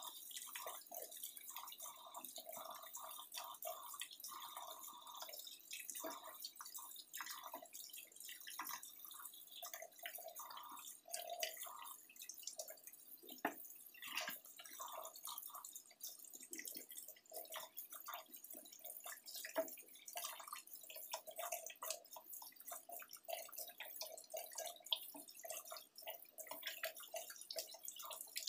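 Kitchen tap running into a stainless steel sink, the stream splashing irregularly over hands and leafy greens being rinsed under it.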